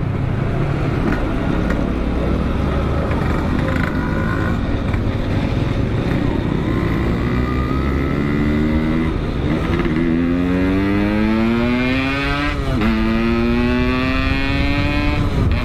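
Two-stroke motorcycle engine with an expansion-chamber exhaust accelerating hard through the gears over wind noise: after some seconds of steady riding its pitch climbs in a long rising whine, drops sharply at a gear change, climbs again, and drops once more near the end.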